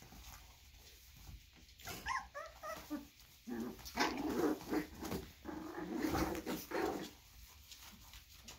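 Three-week-old puppies vocalizing as they wrestle in play: a few high-pitched yips about two seconds in, then several seconds of lower, rougher play noises, loudest about four seconds in.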